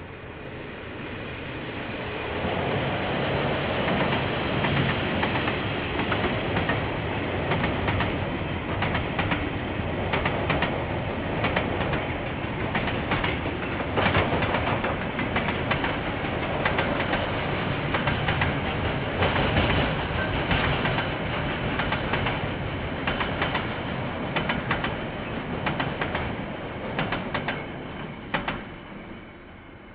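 A freight train rolls past, its wagon wheels clacking over the rail joints in many quick, irregular clicks. The rumble builds over the first few seconds and dies away near the end as the train clears.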